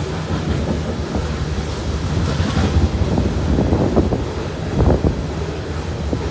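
Loaded steel coal hopper cars rolling past: a steady low rumble of wheels on rail, with irregular knocks and clatter that are loudest about four to five seconds in.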